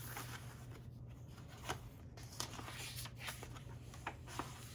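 Paper pages of a handmade junk journal being handled and turned by hand: faint rustling with a few soft ticks of paper and card, over a steady low hum.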